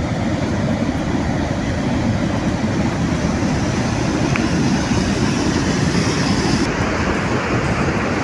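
Loud, steady rush of floodwater, a dense noise with no pauses; its hiss thins out about two-thirds of the way through.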